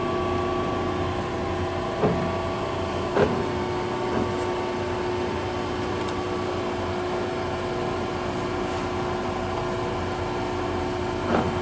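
Steady hum of a large engine lathe's drive running with the spindle stopped, broken by a few short clunks as the headstock speed-selector lever is shifted, about two, three and four seconds in and once more near the end.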